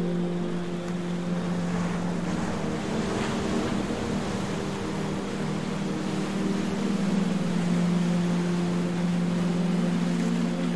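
Slow ambient background music with held low chords over a steady noisy wash.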